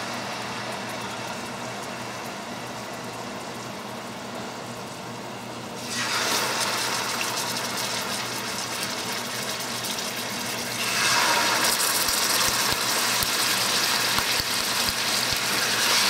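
Soy-sauce-coated chicken thighs sizzling in hot olive oil in a stainless steel sauté pan. The sizzle steps up in loudness about six seconds in and again about eleven seconds in, as more pieces go into the oil.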